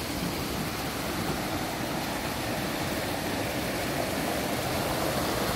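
Steady rushing of river water, an even noise growing slightly louder toward the end.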